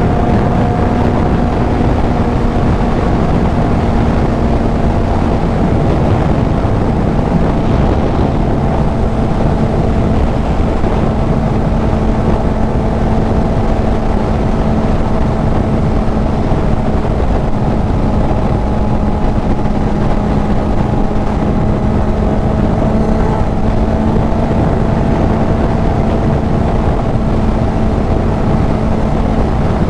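Kawasaki Z900 inline-four with a CS Racing full exhaust at a steady cruise, its engine note holding almost the same pitch throughout and sinking only slightly, under a heavy rush of wind on the helmet-mounted microphone.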